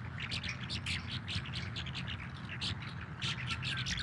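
Many small birds chirping in a dense, continuous chorus of short high chirps, over a steady low rumble.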